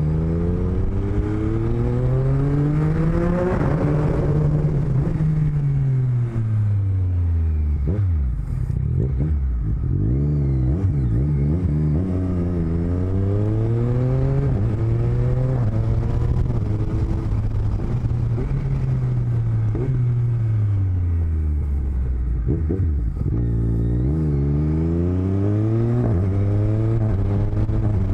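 Motorcycle engine heard through microphones in the rider's helmet lining, rising in pitch as it accelerates and falling as it slows, three times over, with a rougher, lower stretch between the first two rises.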